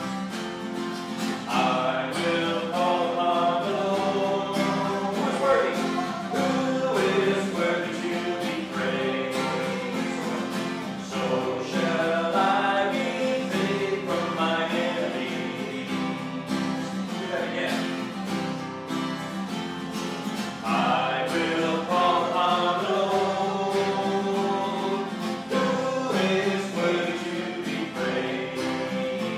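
Acoustic guitar played as accompaniment to singing voices, a continuous song.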